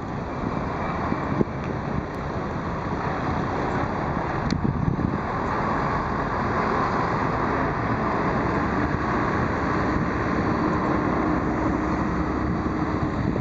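Steady engine rumble with wind noise, with a faint steady hum joining about two-thirds of the way through.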